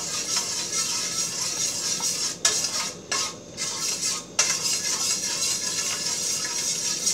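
Slotted metal spatula stirring and scraping in a stainless steel skillet as butter is swirled into a simmering wine sauce, over the steady sizzle of the sauce. The sizzle briefly drops out a few times around the middle.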